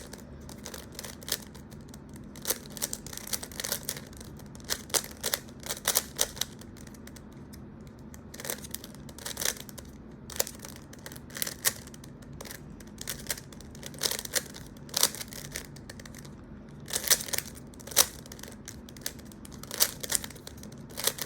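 A 3x3 Rubik's cube being turned by hand during a solve: quick, irregular clicks and clacks of the plastic layers twisting. They come in bursts with short pauses between them.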